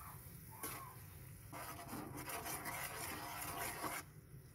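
Metal ladle stirring the pork and broth in a wok, a scraping, scratchy stir lasting about two and a half seconds and stopping abruptly, after a single light click about half a second in.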